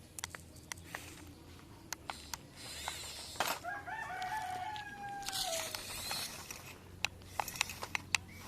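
A rooster crowing once, a held call of about two and a half seconds that drops in pitch at the end. Scattered sharp clicks sound before and after it.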